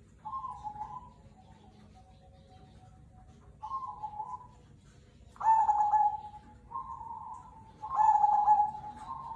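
Zebra dove (perkutut, Cemani Kolbuntet type) cooing: a run of short, pitched coo phrases about a second long, several soft and two much louder ones in the middle and near the end.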